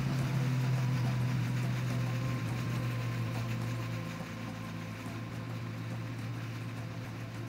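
Outboard motor of a pirogue running at a steady speed, a constant low hum with water and wind noise, a little quieter after about four seconds.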